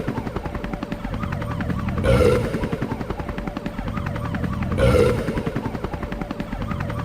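A burp sound looped over and over: a steady, rapid rattling flutter that swells louder twice, about 2.7 seconds apart, each swell identical.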